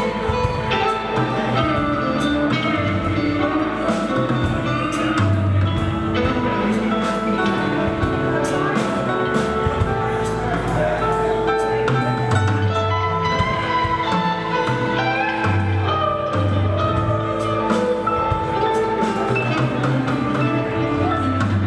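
Live band playing an instrumental passage: electric guitar and keyboard over a bass line that moves every second or two.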